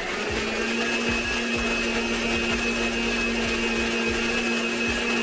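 Viking Professional stand mixer spinning up, then running with a steady whine as its wire whisk beats an egg into choux paste in the steel bowl.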